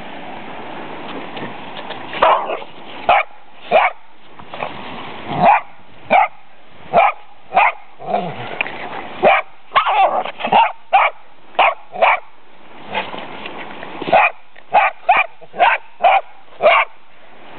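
Fox terriers barking: short, sharp barks starting about two seconds in, coming irregularly and sometimes in quick runs of two or three.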